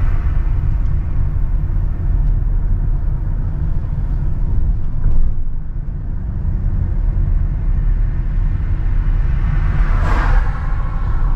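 Steady low rumble of a car driving along a rough, patched road, heard from inside the vehicle.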